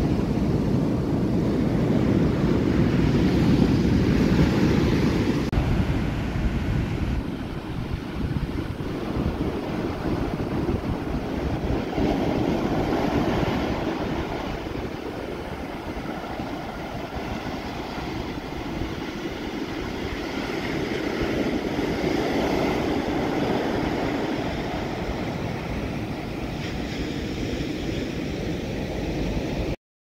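Ocean surf breaking and washing up a sandy beach in slow swells, with wind rumbling on the microphone, strongest in the first few seconds. It cuts off suddenly at the very end.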